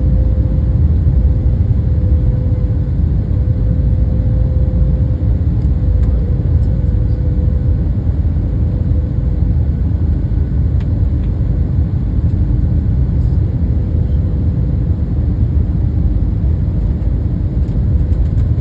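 Cabin noise inside an Airbus A321 on the ground after landing: a steady low rumble with a faint steady hum.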